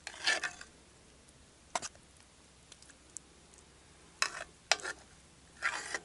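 Metal ladle scraping and knocking in a cast iron camp oven while stew is scooped out, in about five short bursts: one near the start, one just before two seconds in, and three close together in the last two seconds.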